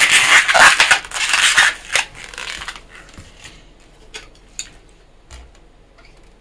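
Latex 260 modelling balloon squeaking and rubbing against itself as it is twisted into a pinch twist, for nearly three seconds. Then a few light clicks and taps from handling.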